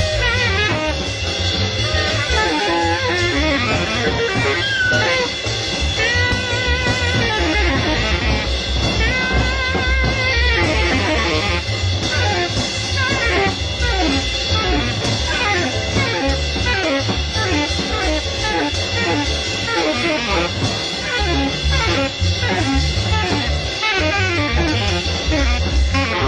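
Jazz quartet playing live: saxophone, piano, double bass and drum kit together, with a wavering, trilled line near the top of the sound a few seconds in.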